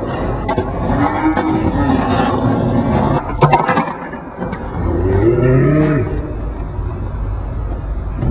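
Skateboard clattering on tarmac in a cluster of sharp knocks about three and a half seconds in, as the board flips away from a bailed trick. Around it are two long, drawn-out, moo-like voice calls and the rumble of wheels on rough ground.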